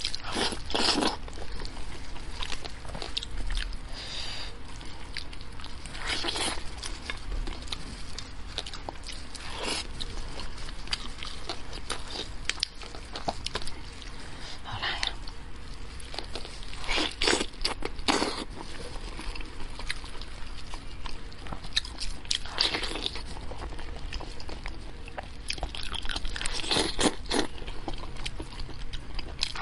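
Close-miked chewing and biting of braised head meat, wet mouth sounds and crunches coming in irregular bursts, with hands pulling meat off the bone.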